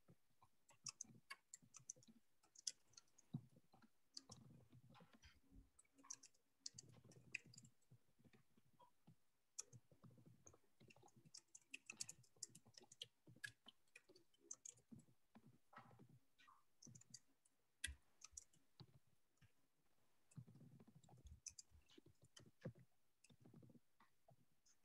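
Faint keystrokes on a computer keyboard, typed in irregular runs with short pauses.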